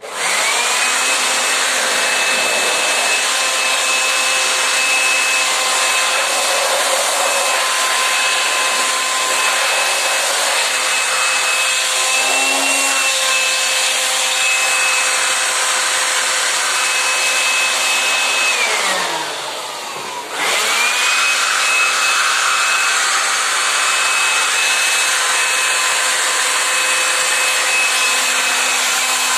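A small high-speed electric motor starts suddenly and runs steadily with a high whine. About nineteen seconds in its pitch falls as it winds down and stops, then it starts again at once and runs on.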